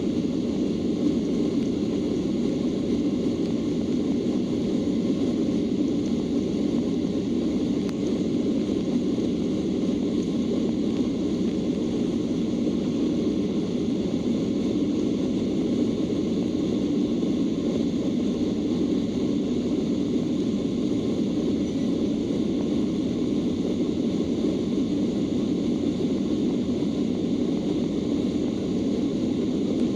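Steady cabin noise of a Boeing 737-800 in flight: an even rush of air and engine sound from its CFM56 turbofans, heard from inside the passenger cabin, deepest and strongest in its low-mid range.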